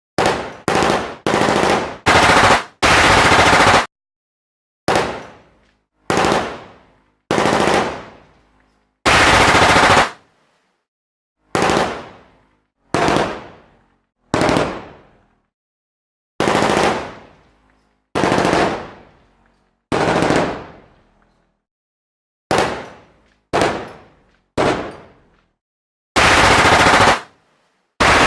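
Machine-gun fire in about twenty short separate bursts, each from half a second to about a second and a half long, with silent gaps between them. Most bursts trail off in a fading echo, and a few cut off sharply.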